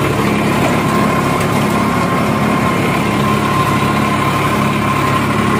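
New Holland 3510 35 hp tractor's diesel engine running steadily under load as it pulls a 10-foot rotavator through the soil in first low gear, with a steady high whine over the engine note. Under this load the engine pulls down about 150 RPM.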